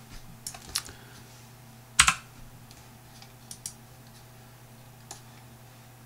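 A few scattered clicks of a computer keyboard and mouse, the loudest about two seconds in, over a faint steady low hum.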